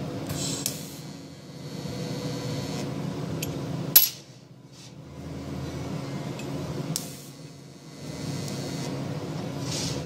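TIG welding arc on a stainless steel buckle, a steady electrical buzz that runs in three stretches with dips between them, with one sharp loud crack about four seconds in.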